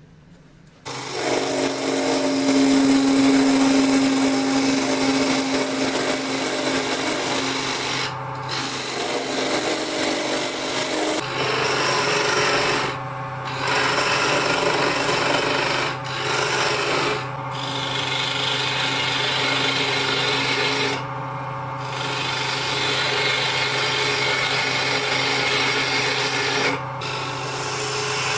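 Wood lathe running, with a turning gouge cutting into the spinning wooden blank: a steady motor hum under a continuous rasping shaving noise. It starts about a second in, and the cutting noise drops out briefly several times when the tool lifts off the wood.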